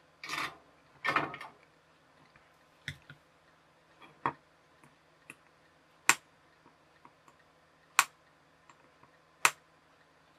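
Small parts and tools being handled at an electronics workbench: two short rustling scrapes, then sharp clicks every second or two, the last three the loudest.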